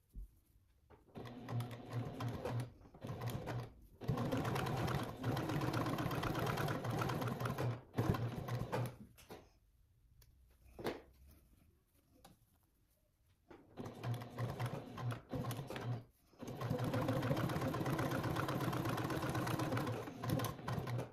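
Janome HD9 sewing machine top-stitching in stop-start runs: a few short stuttering spurts of stitching and two longer steady runs of about four seconds each, with pauses between as the fabric is guided and turned.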